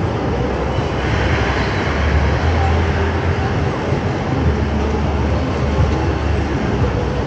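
Steady city traffic noise on a rain-wet avenue: a deep, wavering rumble of heavy vehicles under an even hiss.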